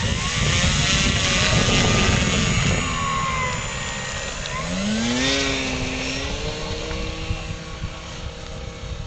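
Senior Telemaster RC model plane's motor and propeller running at high throttle during takeoff and climb-out. It starts suddenly, its pitch slides down over the first few seconds, rises again about five seconds in, then holds a steady drone.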